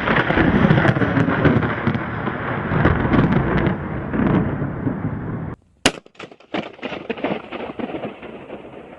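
A loud, rolling rumble that cuts off abruptly partway through, then a sharp crack followed by a run of scattered crackling pops that fade away.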